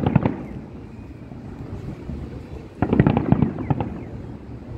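Aerial fireworks bursting in volleys of rapid bangs, one volley at the start and another about three seconds in.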